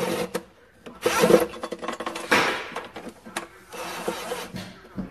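Cordless drill running in several short bursts, its bit grinding into the sheet-metal firewall through a bracket, with a motor whine over a rasping noise and pauses between bursts.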